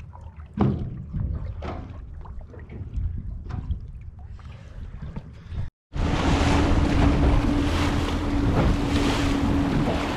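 Small aluminium boat underway in strong wind: its outboard motor running with a steady hum, under loud wind on the microphone and hull-and-water noise. This starts suddenly about six seconds in, after a quieter stretch of low rumble with scattered knocks and clicks as the boat sits drifting.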